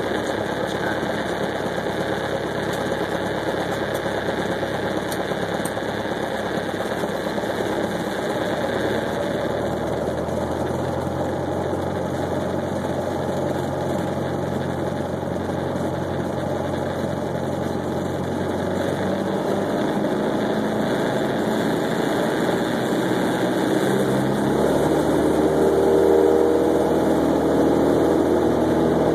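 Light aircraft's piston engine running, heard from inside the cockpit. Its engine speed changes a few times, and it runs a little louder near the end.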